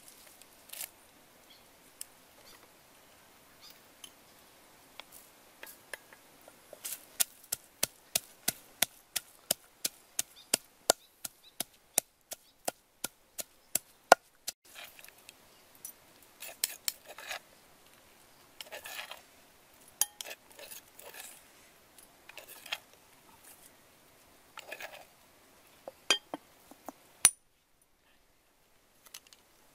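Wooden pestle pounding chilies and garlic in a clay mortar: a fast, even run of sharp knocks, about three a second, from about seven seconds in, then slower, uneven knocks and scrapes.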